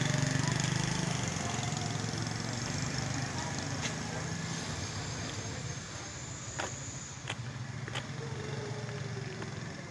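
Steady low engine hum over outdoor street noise, fading somewhat after the first few seconds, with a few sharp clicks in the second half.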